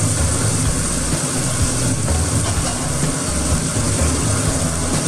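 Potato cubes frying in oil and spice paste in an iron kadai: a steady sizzle over a low, even rumble.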